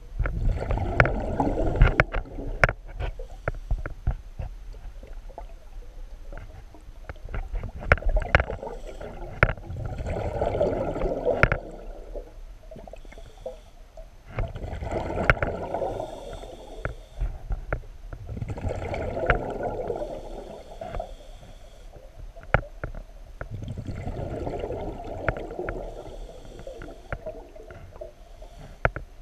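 A diver breathing underwater: exhaled air bubbles gurgling up in five bursts a few seconds apart, with short sharp clicks scattered between them.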